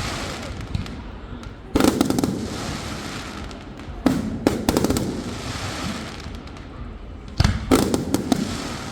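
Aerial fireworks exploding in three clusters, about two seconds in, four seconds in and seven and a half seconds in. Each cluster is several quick loud bangs and cracks followed by a rumbling echo that slowly dies away.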